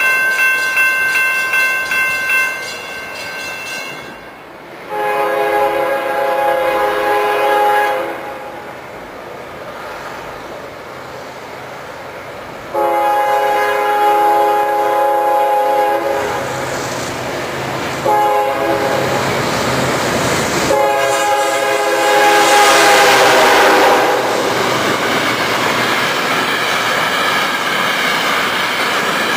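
Diesel freight locomotive's air horn sounding the grade-crossing signal as the train approaches: long, long, short, long, each long blast about three seconds, after an earlier note that ends about two seconds in. From the middle on, the locomotive and a string of open-top hopper cars roll past close by, the wheels clattering on the rails.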